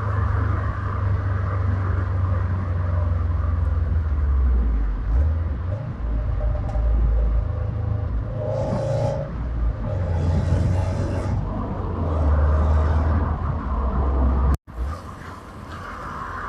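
2018 Subaru WRX STI's EJ257 turbocharged 2.5-litre flat-four running with a deep, steady rumble. The sound cuts out abruptly for a moment about two seconds before the end, then resumes quieter.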